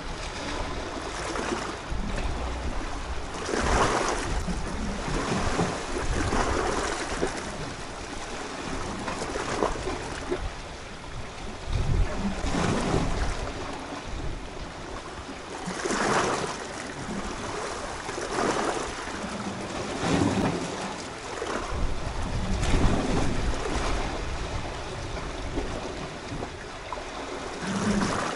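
Sea waves washing against a rocky shore, swelling and easing every few seconds, with wind buffeting the microphone.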